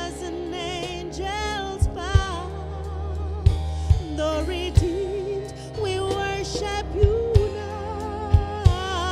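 Live gospel worship music: a singer holding long notes with vibrato over a band with a steady low bass and sharp drum hits at uneven intervals.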